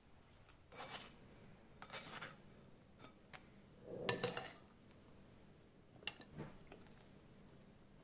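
A spoon scraping and clinking against a glass bowl in about four short bursts while scooping out canned fruit and whipped cream; the loudest scrape comes about four seconds in.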